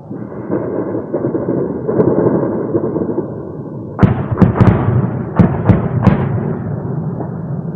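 A steady rumble, then about four seconds in a rapid run of about seven sharp bangs over some two seconds, each trailing off in an echo.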